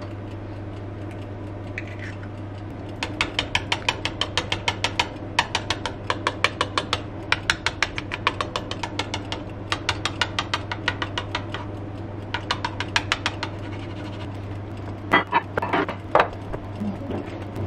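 Hand-twisted spice mill grinding seasoning: rapid ratcheting clicks, about six a second, in several bursts with short pauses, then a few knocks near the end.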